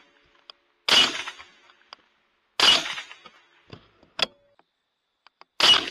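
Three rifle shots from a .300 AAC Blackout rifle, the first about a second in, then a second and a half and three seconds apart. Each is a sharp crack with a short fading tail. A fainter tick follows about a second after each of the first two shots.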